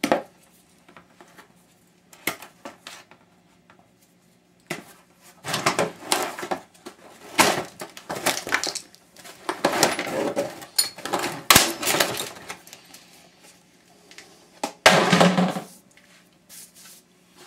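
Hard plastic cover of a power washer being worked loose and pulled off by hand: a few isolated clicks at first, then a run of clattering and knocking of plastic parts, and a short louder clatter about fifteen seconds in.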